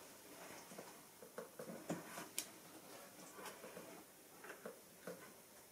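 Faint, scattered small clicks and taps of handling, about eight in all, over quiet room tone.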